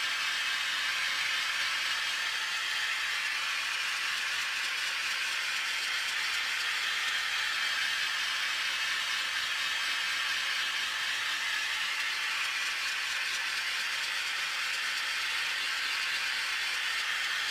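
Oxy-acetylene torch flame hissing steadily, preheating a cast-iron part so that it won't crack when welded.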